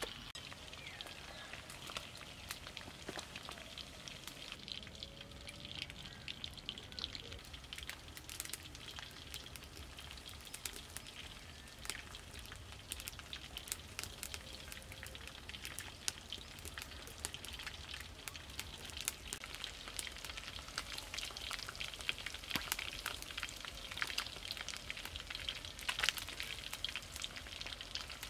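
Breadcrumb-coated frog pieces deep-frying in hot oil in a wok: a steady sizzle peppered with many small crackling pops.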